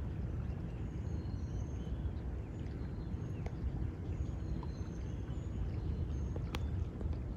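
Shoreline ambience: a steady low rumble of wind and water, with faint, short, high bird chirps scattered throughout and a single sharp click near the end.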